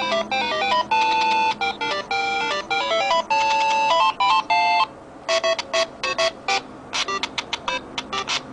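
iPhone ringtone melodies: a tune of clear, pitched notes that stops about five seconds in, then a different ringtone of short, choppy notes begins.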